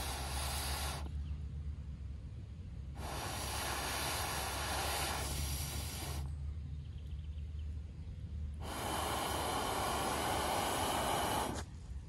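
Breath blown through a metal fire blow pipe into a small folding wood stove to fan the fire: a long rushing hiss that ends about a second in, then two more of about three seconds each, with pauses between.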